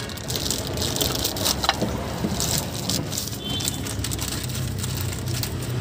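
Thin plastic bag crinkling and rustling as a new water pump is unwrapped, mostly in the first half, over a steady low engine hum.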